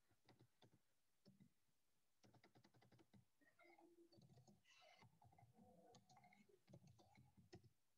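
Faint, scattered clicking of a computer keyboard being typed on, very quiet overall.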